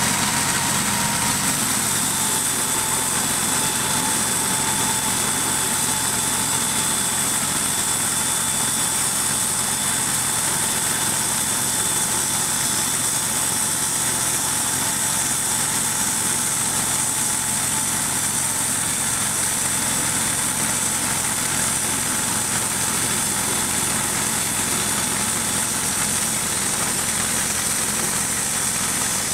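Portable bandsaw mill's engine running steadily under load while the band blade saws lengthwise through a white ash log. A faint high steady whine runs over the engine.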